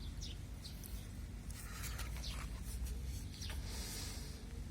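Faint rubbing and scuffing from hands cleaning the parts of a car radiator fan motor, with a few short high squeaks.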